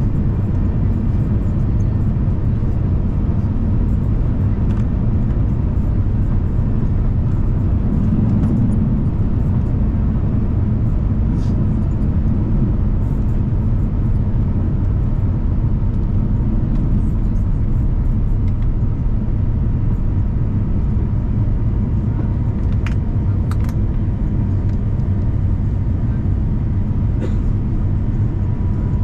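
Steady cabin noise inside an Airbus A350-900 on approach, heard from a window seat over the wing: a low rumble of airflow and the Rolls-Royce Trent XWB engines, with a thin steady whine.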